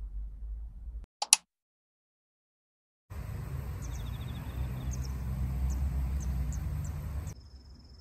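Outdoor ambience: a steady low rumble with faint, high, ticking chirps over it, which cuts off abruptly near the end. It is preceded by a single sharp click and a moment of dead silence.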